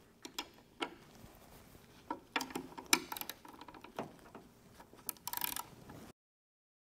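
Scattered light clicks, taps and scrapes of hand tools on the metal mounting hardware of a GPS unit, with a short rattling burst about five seconds in. The sound cuts off abruptly about six seconds in.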